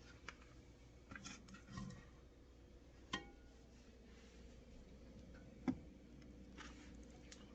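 Near silence with a faint steady hum, broken by a few light clinks and taps of glassware being handled. One clink about three seconds in rings briefly; a sharper knock comes near six seconds.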